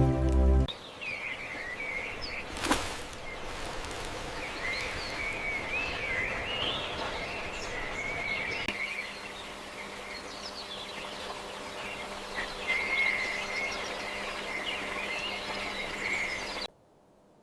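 Small birds chirping and twittering over a steady outdoor hiss, with one sharp knock about two and a half seconds in. The sound cuts off abruptly near the end.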